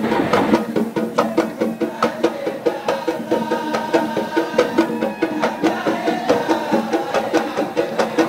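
Traditional Hadhrami 'idda folk troupe music: drums beat a steady rhythm of about two strokes a second under a held melodic line.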